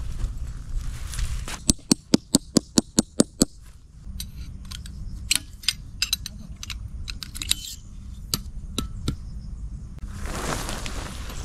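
A rapid run of about ten sharp strikes, a tent peg being hammered into hard ground. Then scattered clicks and clacks as the sections of a tarp pole are fitted together, and a short rushing noise near the end.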